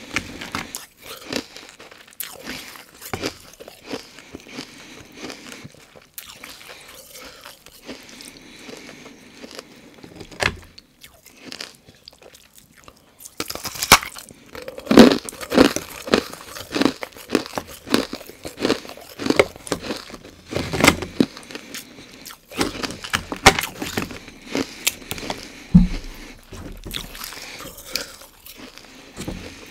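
Loud crunching and chewing of carbonated ice, cloudy and brittle from the bubbles frozen into it. The first part has only scattered sharp cracks; from about halfway in come dense runs of loud crunches as the chunks are bitten and chewed.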